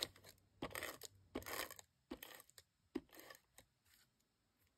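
Adhesive tape runner drawn across cardstock in several short strokes, with light handling of the paper.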